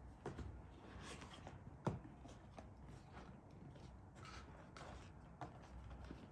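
Faint handling of a cardboard package box: scattered light rustles and taps, with one sharper knock about two seconds in.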